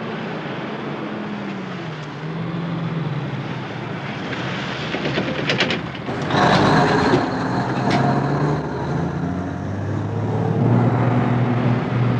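Tanker truck's diesel engine running as the truck drives past and pulls away, its pitch shifting up and down, with a louder, noisier surge about six seconds in.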